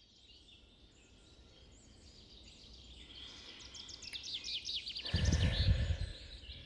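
Birdsong fading in: faint high chirping, then a quick run of rapid chirps about three and a half seconds in. A short low rumble, the loudest sound, comes about five seconds in.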